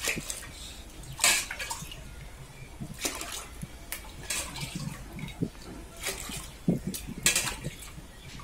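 Water poured from a steel tumbler into a pressure cooker of soaked rice, splashing in several short pours a second or two apart as the cooking water is measured out tumbler by tumbler.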